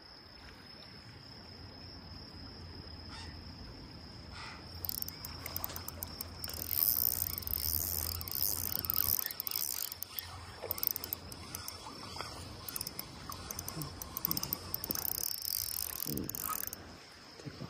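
Steady high insect trill, typical of crickets. From about five seconds in until near the end, a spinning fishing reel is being wound, with a dense run of fast clicking on top of the trill.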